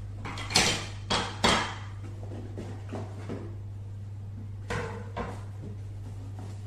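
Unboxing handling sounds: plastic weather-station parts being pulled from a molded pulp packing insert in a cardboard box and set down on a wooden table, giving short knocks and scrapes. Three sharp ones come in the first two seconds and softer ones follow about three and five seconds in, over a steady low hum.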